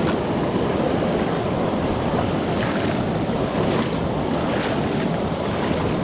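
Rain-swollen creek water rushing past, a steady, loud roar.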